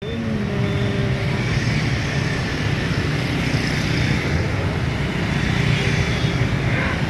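Dense street traffic, mostly motorbikes and scooters with some cars, passing close by in a steady wash of engine noise.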